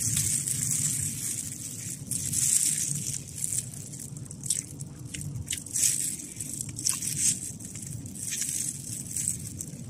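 Disposable plastic gloves crinkling as tender Dezhou braised chicken is pulled apart by hand, then chewing and lip smacks as it is eaten, with scattered short crackles over a steady low rumble.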